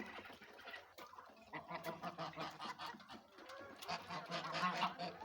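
Domestic geese honking, many short calls overlapping one another, getting busier and louder in the second half.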